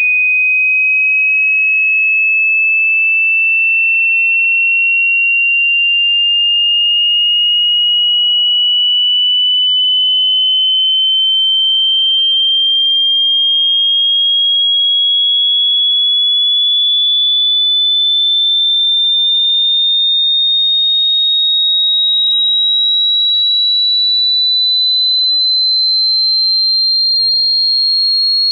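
Hearing-test sine tone: a single high, pure electronic tone rising slowly and evenly in pitch by nearly an octave, steady in loudness, with no pauses.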